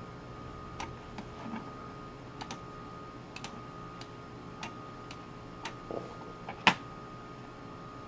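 A dozen or so sharp computer mouse clicks at uneven intervals, the loudest near the end, over a faint steady tone.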